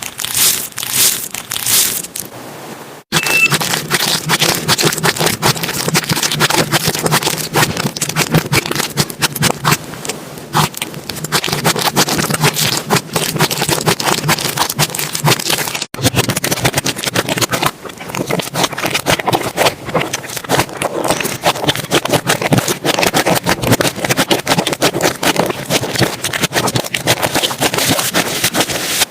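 Slime being squished and poked by hand, giving dense, irregular wet crackling and popping clicks, broken by two brief gaps.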